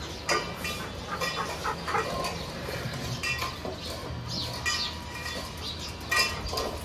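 Stainless steel dog bowls clinking and scraping on a tiled floor as dogs eat from them and bowls are picked up: scattered short metallic clinks, some ringing briefly.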